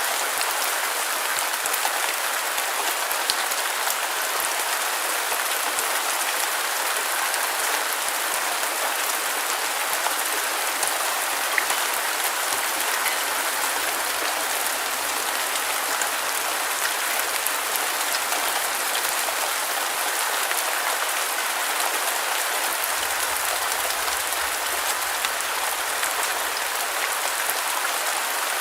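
Steady rain falling on a surface, an even hiss with fine pattering drops and no rumble of thunder.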